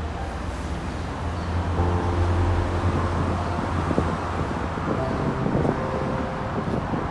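Background music with short held notes, over a low steady rumble and wind on the microphone.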